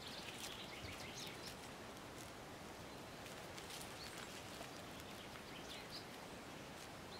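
Faint outdoor background noise with scattered faint, short high-pitched chirps and ticks.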